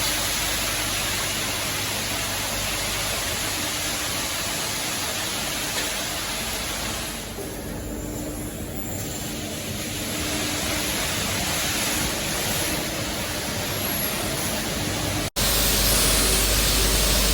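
Steady hissing noise of a CNC machining workshop with many machines running, a faint hum underneath. About fifteen seconds in it cuts out for an instant and gives way to a louder, harsher hiss.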